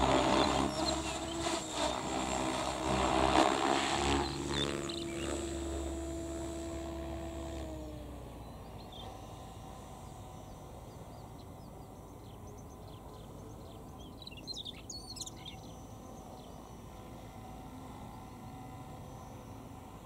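An engine drone passes, its pitch falling slightly as it fades away over the first eight seconds or so. In the quieter stretch after it, a male Siberian rubythroat sings, with a short high phrase about three-quarters of the way through.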